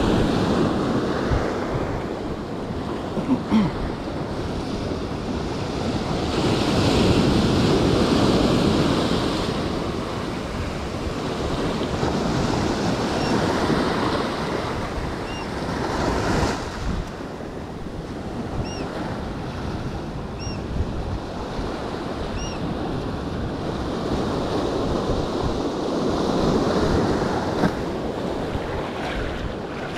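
Ocean surf breaking and washing up a sandy beach, swelling and easing in several slow surges, with wind buffeting the microphone.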